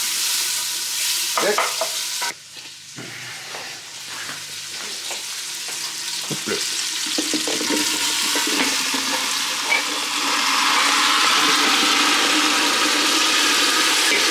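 Soup vegetables sizzling in a pot on a gas cooker as they are stirred, with a few short knocks in the first seconds. The sizzle drops suddenly about two seconds in, then slowly builds back to a steady, louder sizzle.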